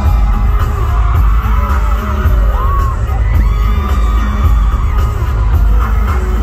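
Live K-pop song through a concert PA, with heavy bass, a singer's voice and fans screaming and cheering over it.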